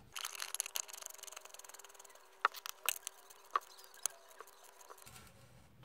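Oil filter canister being screwed back on under the car, with faint scraping handling noise, then several sharp separate clicks around the middle as the cap-type filter wrench and ratchet go onto it.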